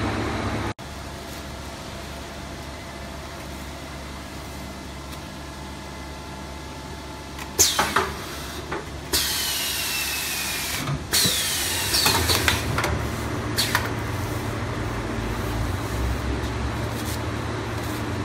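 Semi-automatic toilet-roll bagging machine running with a steady low hum. About halfway through, its air cylinders clack sharply, then air hisses out in two bursts, each with a falling whistle, followed by a few more knocks.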